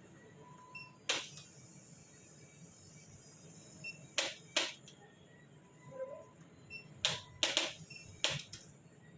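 A series of about eight sharp cracks, several in quick pairs and triplets: joints popping during a chiropractic adjustment.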